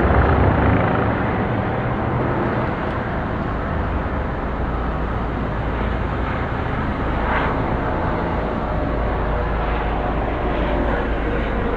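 Police helicopter circling, its rotor and engine giving a steady low rumble over a haze of city background noise.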